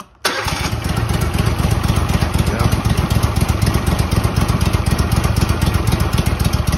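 Walker mower's air-cooled engine catching suddenly just after the start and then running steadily with a rapid, even exhaust pulse, fed only by the fuel left in its carburetor with no fuel supply connected.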